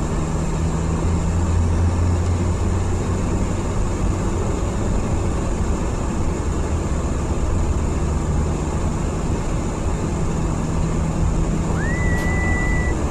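Ford Transit Custom van driving at road speed, heard from inside the cabin: a steady low engine hum over even tyre and road noise. Near the end a single whistled note rises and holds for about a second.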